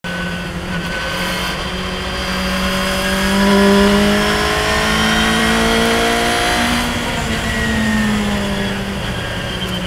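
Radical SR3 race car's motorcycle-derived four-cylinder engine at full throttle in fourth gear, its pitch rising steadily as the revs climb from about 5,300 to 6,500 rpm, heard from the open cockpit with wind rush.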